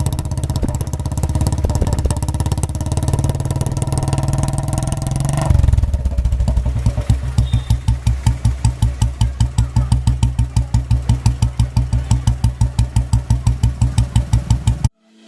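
Royal Enfield single-cylinder engine running through an aftermarket silencer: held at raised revs, then a short blip about five seconds in, after which it drops to idle with an even thump of about five beats a second. The sound cuts off just before the end.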